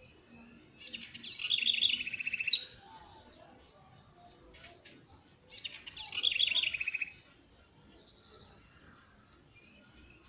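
A songbird singing two loud phrases a few seconds apart, each a quick burst of high notes running into a rapid trill, with fainter chirps between them.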